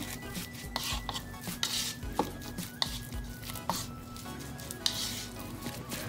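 A utensil clinking, knocking and scraping against cookware in a string of sharp hits, with quiet background music underneath.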